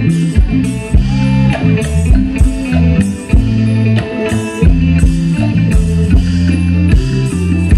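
Live Isaan pong lang band music: drums keep a steady beat under plucked electric strings and a heavy bass line.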